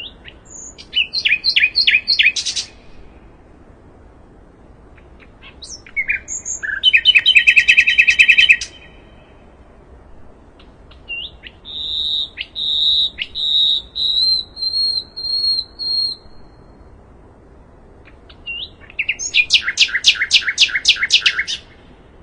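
Sikatan londo songbird singing in four separate phrases: short bursts of rapidly repeated high notes about a second in, around seven seconds in and near the end, and a longer warbling series of notes in the middle, over a faint steady background hiss.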